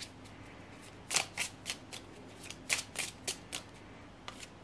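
A deck of Lenormand cards being shuffled by hand: irregular sharp flicks and slaps of the cards against each other, in small clusters.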